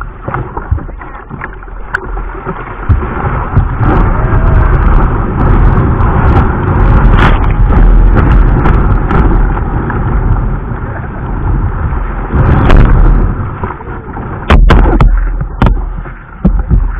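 Ocean surf breaking over and rushing past a whitewater kayak's bow, heard close from a camera on the deck: a loud, rough rumble of churning water with several hard splashes, the biggest near the middle and two more near the end.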